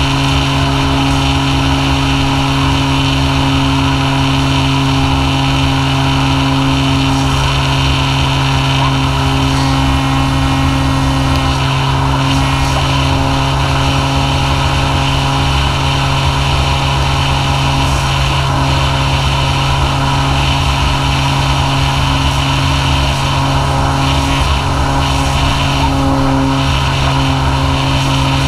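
Electric motor and propeller of an E-flite Apprentice S 15e RC plane running in flight, a steady whine that holds one pitch throughout, heard from a GoPro on the airframe with wind rushing over the microphone.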